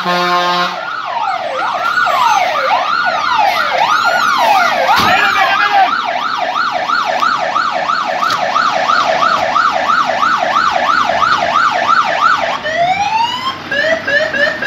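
Fire engine's siren sounding: slow wailing sweeps up and down, then a faster yelp of about two to three sweeps a second, ending in short rising whoops near the end. Before the siren starts, a steady horn-like tone cuts off about a second in.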